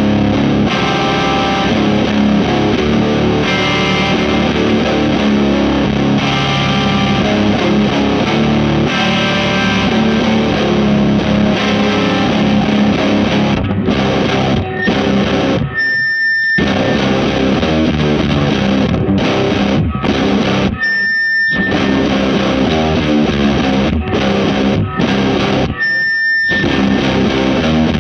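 Distorted electric guitar in C standard tuning, played through a Meteor Distortion pedal with some delay: heavy sustained chords in slow, doom-style riffs. The playing stops abruptly for brief gaps several times in the second half.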